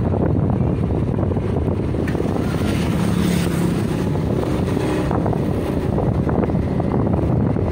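Wind buffeting the microphone over a motorbike's engine, heard while riding along a road. The noise swells briefly about three seconds in as another vehicle passes.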